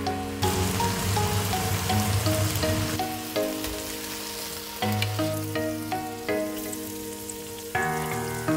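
Shrimp frying in a hot wok with sweet soy sauce, a steady sizzle that is strongest in the first three seconds, under background music with a slow melodic tune.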